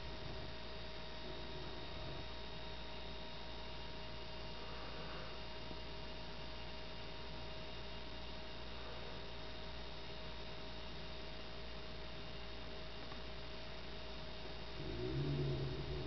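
Microwave oven transformer driven by a PWM circuit, giving a steady electrical hum with a thin whine of several fixed tones while its primary is pulsed from a 12-volt battery. A brief low murmur comes near the end.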